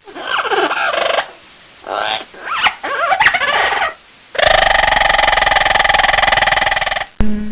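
Domestic fowl calling in several separate short clips: a few falling calls, a run of short calls, then one long steady call with a fast rattling pulse.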